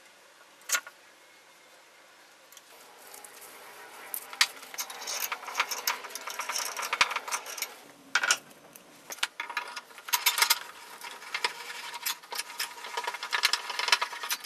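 Metal clicking and rattling from a 6-inch Dawn Tools cast-iron bench vice being handled and worked after greasing and reassembly. It starts a few seconds in with quick metallic clicks and clinks, which come thicker and sharper toward the end.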